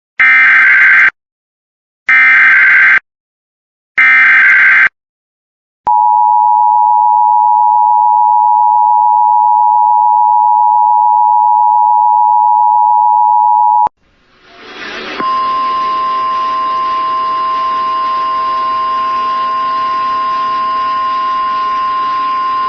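Emergency Alert System SAME header: three short, harsh, buzzy data bursts about a second each. Then the two-tone EAS attention signal is held steady for about eight seconds and cuts off sharply. A hiss then rises, and a steady single tone sounds over radio static, in keeping with NOAA Weather Radio's 1050 Hz warning alarm tone.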